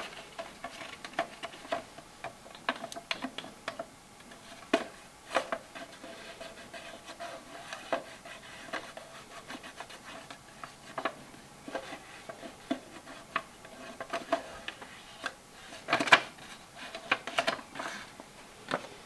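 A sheet of paper card pressed against a turbocharger's turbine-housing flange, rustling and scratching as fingers rub around its edges and bolt holes to take a template. Many short, irregular crinkles and taps.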